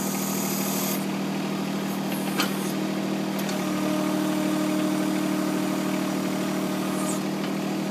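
The engine powering a John Deere 260 backhoe runs steadily at idle. A high hiss stops about a second in, a short click comes about two and a half seconds in, and a steady higher hum joins the engine from about three and a half seconds on.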